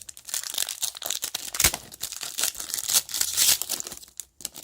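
A trading-card pack wrapper crinkling and tearing as it is ripped open, a dense crackle with a single sharp knock a little under two seconds in.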